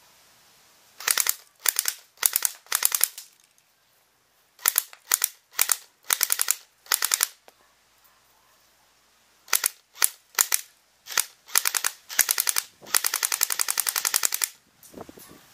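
A gun firing on full automatic in many short bursts of rapid shots, in three groups with pauses between. The last group ends in a longer burst of about a second and a half.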